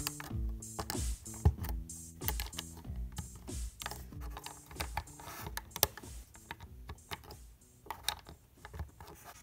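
Plastic Lego bricks clicking as they are pressed and snapped onto a build: scattered sharp clicks, the sharpest about a second and a half in and about six seconds in. Background music with low, stepped notes plays throughout.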